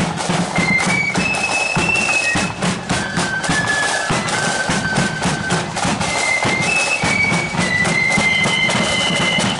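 Marching flute band playing a tune: many flutes in unison carry a high melody of held notes over a steady, driving drum beat.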